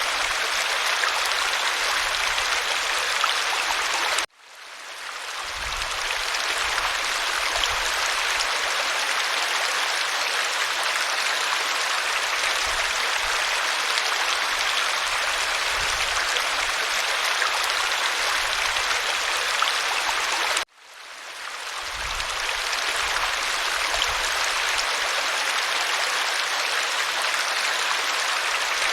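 Waterfall rushing steadily. Twice the sound cuts out suddenly and fades back in over a second or two.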